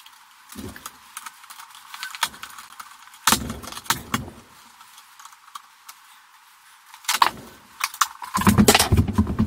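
Scattered metallic clicks and knocks of hands and tools working in a steel electrical breaker panel as wires and breakers are handled, turning into a dense run of clattering and rattling near the end.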